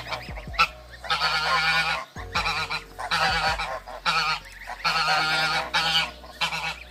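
Domestic goose honking, a series of loud honks in quick succession.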